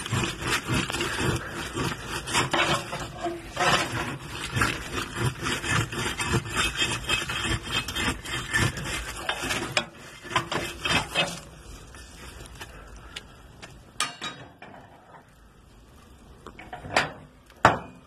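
Metal poker scraping and knocking against burning logs and the stove's iron grate: a dense run of scrapes and clicks for about eleven seconds, then quieter, with a few sharp knocks near the end.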